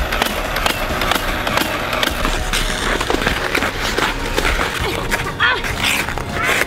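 Ice skate blades scraping and cutting across rink ice, with scattered scuffs and clicks.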